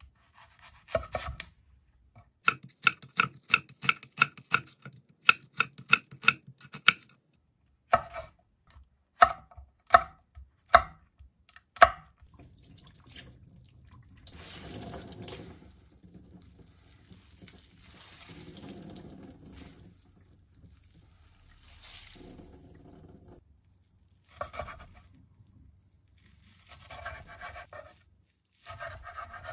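A chef's knife chopping on a wooden cutting board, quick sharp knocks at about two or three a second, then a few heavier single cuts. Then a tap running into a steel sink while seaweed stems are rinsed in a glass bowl, the water swelling three times. More knife strokes on the board near the end.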